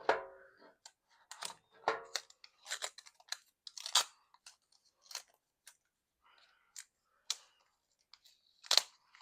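Earbuds box packaging being handled and opened: scattered crinkles, scrapes and taps of cardboard and plastic, coming in irregular bursts with short pauses.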